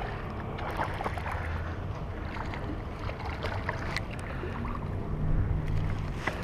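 Wind rumbling on the microphone, with the clicks and whir of a Shimano Caenan baitcasting reel being cranked to reel in a hooked fish.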